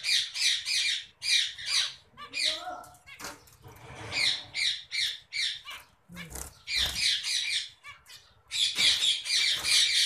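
Parrots squawking in quick runs of harsh, repeated calls, several runs with short gaps between them. The longest and densest run comes near the end.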